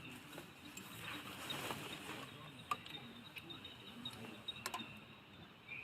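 Insects, crickets, chirring steadily and high, with a few faint sharp clicks.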